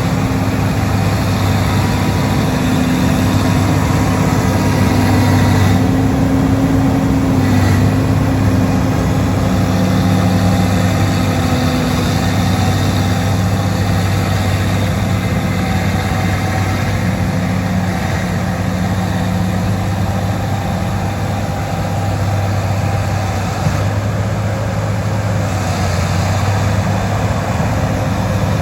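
Bulldozer's diesel engine running steadily and loud, its note shifting slightly now and then.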